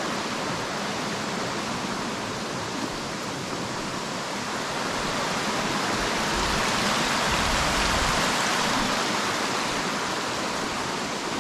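Water rushing steadily down a rocky waterfall cascade, a constant hiss that swells a little louder in the middle.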